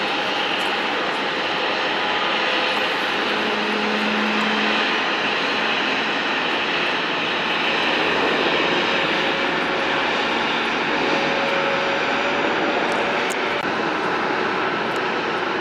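Jet airliner engines running: a steady, even engine noise with a few faint held tones in it.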